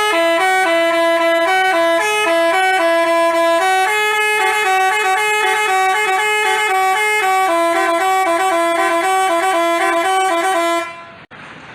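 Telolet basuri multi-tone bus horn playing a melody: steady notes stepping up and down in two parallel voices, the tune cutting off near the end.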